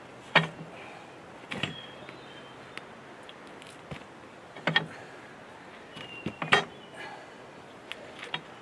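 Metal clanks and knocks from work on a mini-excavator's track and undercarriage: several sharp separate hits a second or more apart, some with a brief ringing tone.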